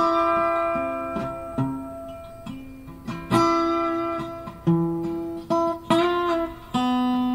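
Background music: a guitar picking slow single notes that ring out and fade, with one note bent upward about six seconds in.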